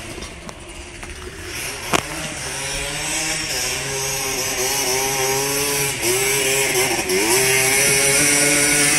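Quad bike (ATV) engine running at high revs, its note steady and growing louder as it approaches. The throttle eases off and comes back on briefly about six and seven seconds in. There is a single sharp click about two seconds in.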